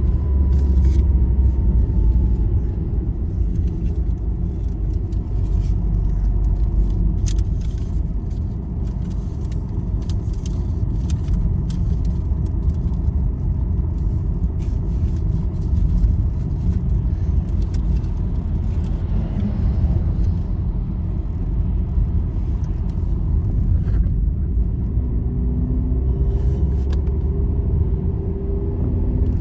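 Road vehicle travelling on a highway, heard from inside: a steady low rumble of engine and tyres, with scattered faint rattles and clicks.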